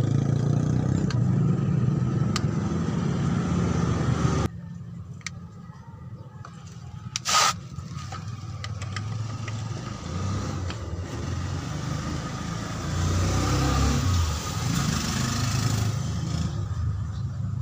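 Low rumble of a motor vehicle running that cuts off abruptly about four and a half seconds in. A brief sharp noise follows a few seconds later, and the rumble swells again near the end.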